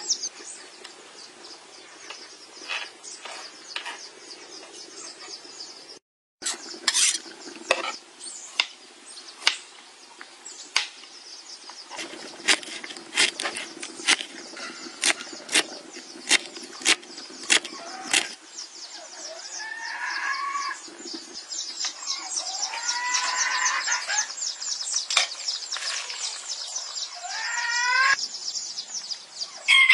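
Kitchen knife chopping ginger on a plastic cutting board: a run of sharp knocks, about two a second at their busiest. Chickens cluck in the background toward the end.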